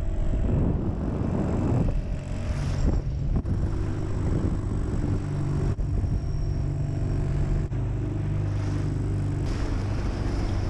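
Small open motorboat running at steady speed: a low, even engine drone mixed with wind on the microphone and water rushing past the hull. The sound jumps abruptly a few times.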